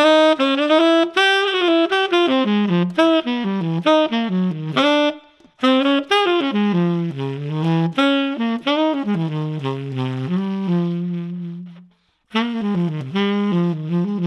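Tenor saxophone with a JodyJazz hand-hammered rose gold-plated mouthpiece played solo: a melodic line of quick notes, with two short breath pauses about five seconds and twelve seconds in, and a longer held low note just before the second pause.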